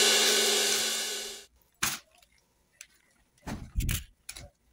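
A cymbal-crash reveal sound effect rings out and fades away over about a second and a half. It is followed by a single sharp click and a few soft knocks and rustles of handling.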